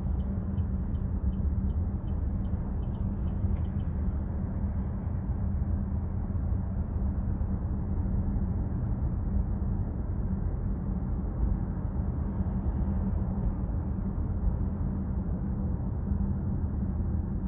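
Steady road and engine rumble inside the cabin of a Chevrolet Trax Crossover driving at speed. A light ticking at about three a second can be heard over it for the first few seconds.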